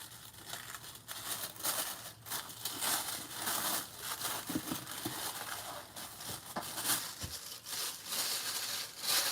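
Packaging being handled and unwrapped by hand: irregular rustling and crinkling of paper and plastic wrap, on and off.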